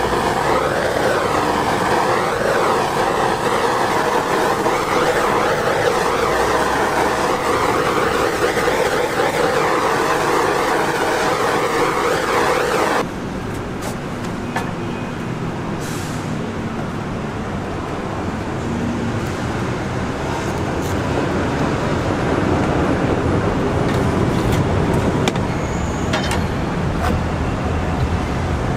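Steady whirring machine noise from an oven running while the pizza crepe bakes. About 13 seconds in it drops suddenly to a quieter steady hum, with a few scattered clicks and knocks.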